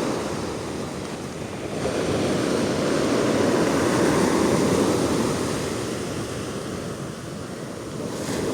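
Sea surf: large waves rolling in and washing on the beach, the rush swelling and easing in slow surges.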